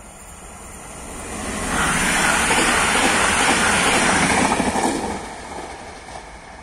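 Koleje Dolnośląskie regional passenger train passing close by at speed: a steady rushing rumble of wheels on rail that builds, is loudest for about three seconds from around two seconds in, then fades.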